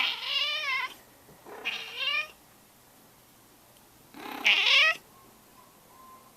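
Domestic cat meowing three times: two meows close together at the start, then a louder one about four seconds in.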